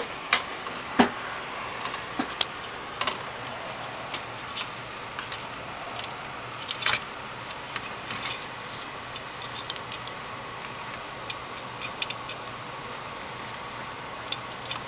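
Scattered light clicks and rattles of small parts being handled: plastic wire connectors being fitted onto a monitor's circuit boards under its sheet-metal cover. A steady low hiss lies beneath.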